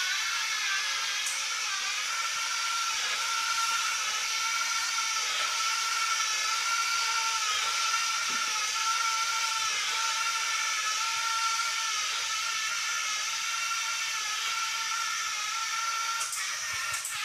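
Homemade robot vacuum running, its small vacuum motor and drive motors giving a steady whine whose pitch wavers slightly, with a couple of clicks near the end.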